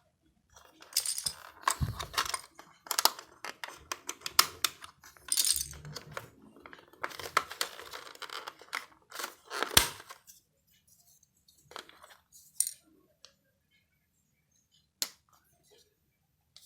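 Small hard plastic keyboard parts, such as keycaps, clicking and clattering as they are handled, in a busy run of clicks that thins out after about ten seconds to a few separate clicks.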